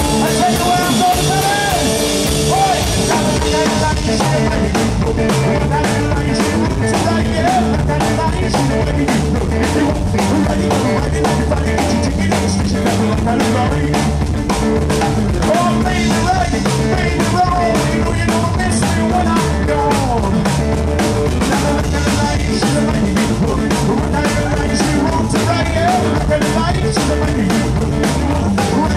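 A live rockabilly trio playing an instrumental break: an electric guitar lead with bent notes over busy drumming on a standing drum kit and an upright bass, at a fast, steady beat.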